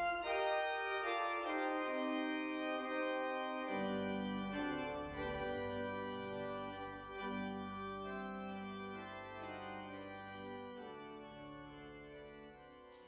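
Organ playing slow sustained chords over a bass line, fading gradually away toward the end.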